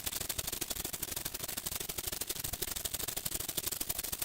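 A rapid, steady clatter of sharp clicks, many to the second, with no pauses.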